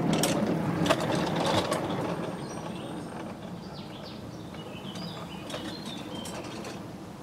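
Battery-electric 7¼-inch gauge ride-on locomotive running on its garden track, its wheels and drive gear clattering on the steel rails. A few sharp clicks come in the first two seconds, then the sound fades as the loco moves away. Birds chirp faintly in the background.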